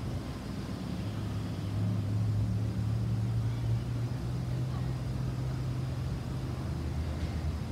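Boeing 737-800's CFM56-7B turbofan engines heard from the ground as the airliner passes overhead: a steady low rumbling drone with a hiss above it, growing a little louder about two seconds in.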